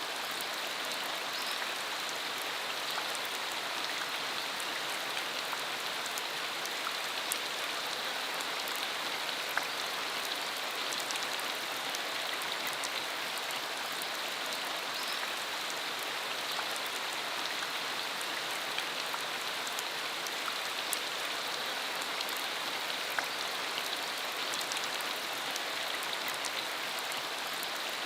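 Steady rain falling, an even hiss with many small drop ticks throughout.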